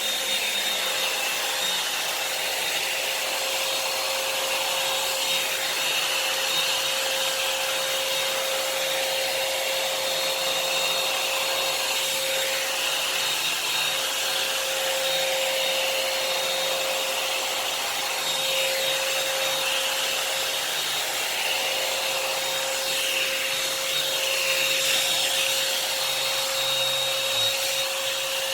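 Revlon hot-air dryer brush running steadily: a motor whine over the rush of the fan's airflow, with small shifts in the air noise now and then as it is worked through the hair.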